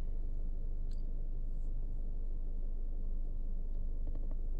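Steady low hum inside a car, with a faint click about a second in and a few more near the end.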